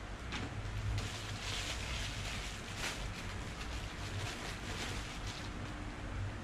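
Plastic bag and bubble wrap rustling and crinkling as an object is unwrapped by hand, in irregular bursts over a low steady hum.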